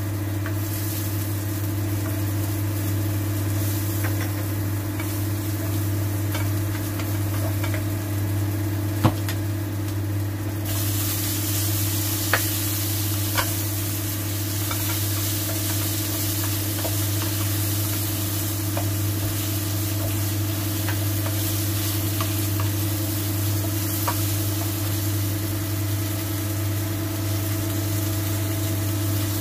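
Garlic, sliced chili and mala seeds sizzling in oil in a wok while a wooden spatula stirs and scrapes, with scattered sharp clicks of the spatula on the pan. The sizzle gets louder about eleven seconds in, when the fried chicken wings go into the wok. A steady low hum runs underneath.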